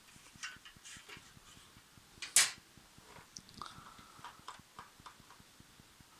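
Light plastic clicks and rustles of an HP LaserJet M104a printer's parts being handled during disassembly, with one sharp snap about two and a half seconds in.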